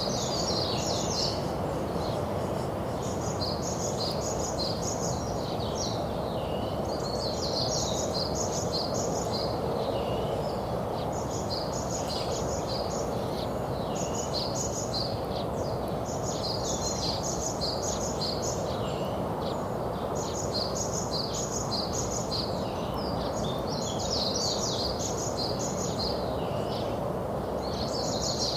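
Small songbirds chirping in repeated phrases of rapid, high notes, a new phrase every two or three seconds, over a steady background hiss.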